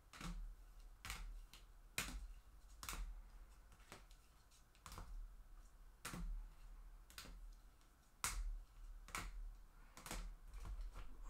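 Trading cards being handled on a table, each one giving a sharp tap or snap, about once a second.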